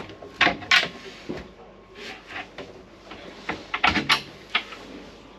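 Two sharp knocks under a second in, then a cluster of clicks and knocks near four seconds in as a cabin locker door is unlatched and swung open.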